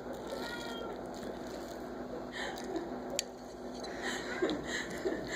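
Cats chewing and smacking on soft wet food, with a single sharp click about three seconds in.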